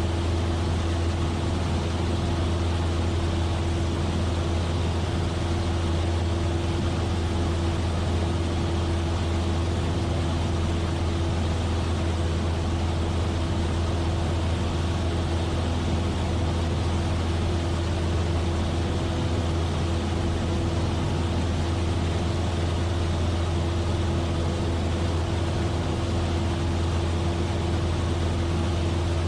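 Cessna 172F's six-cylinder Continental O-300 engine and propeller droning steadily in flight, heard from inside the cockpit as a low, even hum with wind noise.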